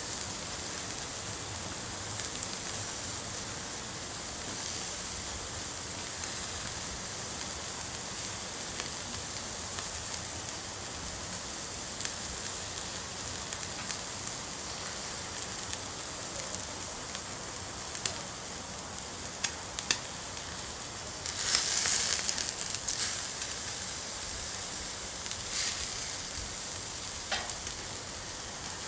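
Steady high-pitched hiss with scattered sharp clicks and crackles, and a short louder crackling stretch about two-thirds of the way through.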